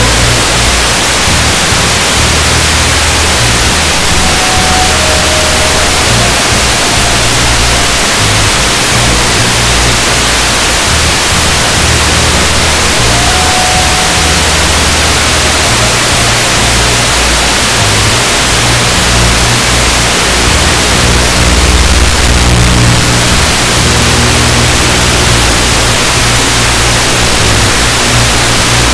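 Loud, steady static hiss with music underneath, its low bass notes changing every second or so.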